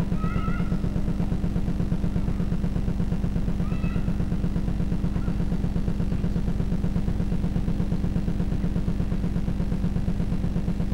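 Steady low buzzing hum with a fast, even pulse, the home-video recording's own motor or electrical noise rather than anything in the scene. A few faint high-pitched rising calls sound near the start and again about four seconds in.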